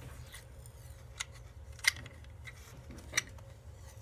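Small plastic clicks from handling a toy tape dispenser with a built-in cutter: three sharp clicks about a second apart and a few fainter ticks.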